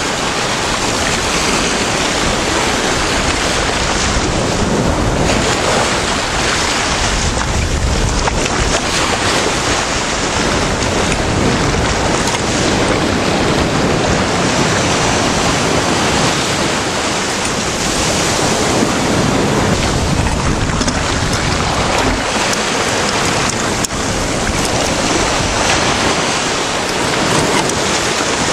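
Waves breaking and washing in, a steady surf that swells every few seconds, with wind buffeting the microphone.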